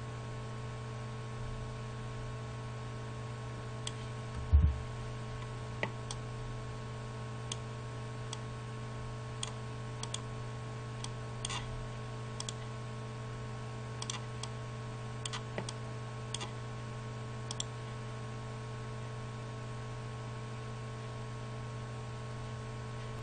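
Computer mouse clicking now and then over a steady electrical hum, with one louder thump about four and a half seconds in.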